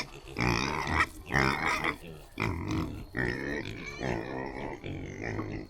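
Pigs grunting and squealing, about six calls in a row, fussy as they wait to be fed.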